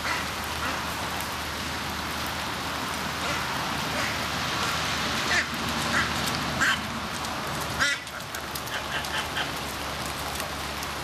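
Domestic waterfowl giving short calls now and then, with a quick run of calls near the end, over a steady background hiss.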